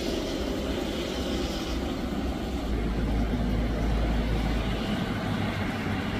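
Steady rain with wind buffeting the microphone, a low rumble that grows stronger in the middle.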